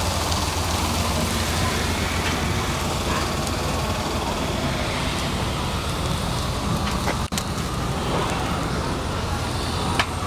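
Steady low hum and rumble of outdoor background noise around open wood-fired grills, with a few faint crackles from the fires. The sound briefly cuts out about seven seconds in.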